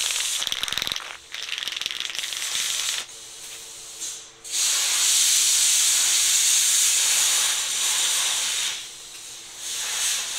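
Rust-Oleum 2X Ultra Cover aerosol spray-paint can, first rattling as it is shaken, then spraying in one long steady hiss of about four seconds, with a shorter spray near the end.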